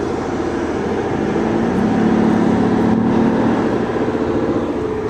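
Steady mechanical hum of a moving machine with a low humming tone that swells for about two seconds in the middle.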